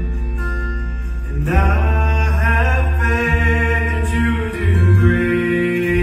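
Live gospel band playing, with strummed acoustic guitars and an electric bass. Singing comes in about a second and a half in.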